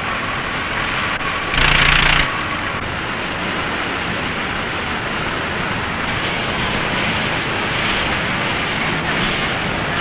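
Steady running noise of food-processing conveyor machinery, an even mechanical drone. A short louder rush of noise lasts about half a second, starting about a second and a half in.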